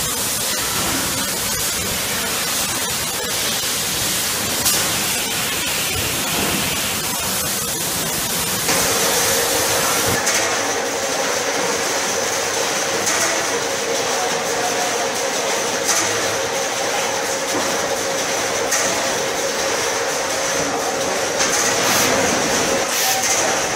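Automatic case packing machine running: steady mechanical noise with a few sharp knocks, joined about nine seconds in by a steady whine and a high hiss.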